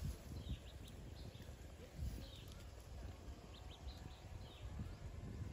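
Young Asian elephant shuffling its feet on dry dirt and leaf litter, giving a few soft low thuds, with faint bird chirps in the background.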